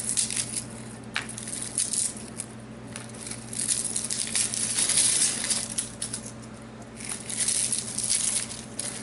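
Garlic bulbs broken into cloves by hand and their dry papery skins rubbed and crinkled off, in bursts of crackly rustling with a sharp click about a second in. A steady low hum runs underneath.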